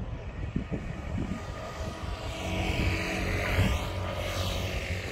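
An engine passing by, loudest a little past the middle, with wind rumbling on the microphone.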